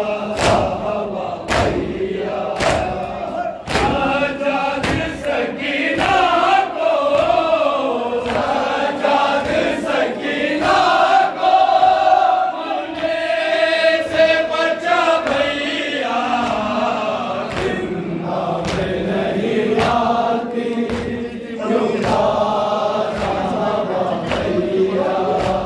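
A group of men chanting a Shia noha lament together, with rhythmic matam: open hands slapped on chests in regular strokes, about one a second at first.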